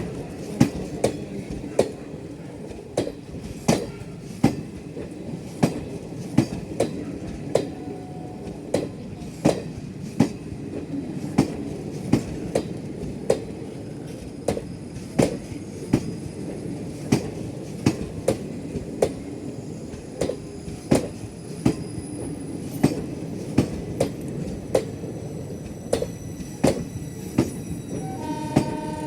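Passenger train running at steady speed: its wheels click over the rail joints in an even rhythm, somewhat under two clicks a second, over a continuous rumble of the coaches.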